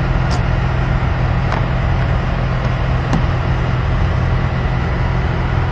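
Idling engine's steady low rumble, with three faint clicks.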